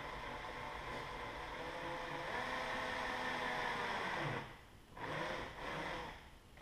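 Cordless drill-driver running steadily for about four seconds, then stopping, followed by two short bursts, while fastening the rear camera mount to the bumper.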